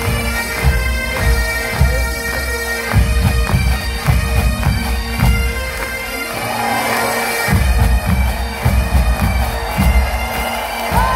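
Massed Highland bagpipes playing a tune over their steady drone, with regular drum beats under them that drop out briefly about halfway through.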